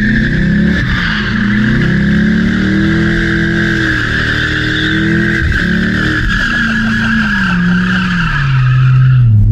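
Car engine revving up and down under a continuous high tyre squeal, like a burnout or drift. The squeal holds steady and the engine pitch rises and falls several times.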